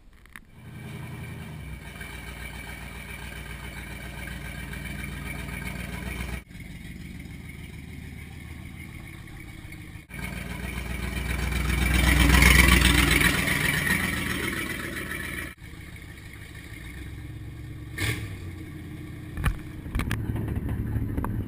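Classic pickup truck's engine starting and then running, with abrupt cuts between shots. It grows loud and then fades as the truck passes, and near the end it idles with two short, sharp knocks.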